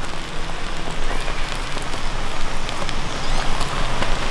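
Beaten-egg omelette frying in butter in a nonstick pan: a steady sizzle with many small crackles.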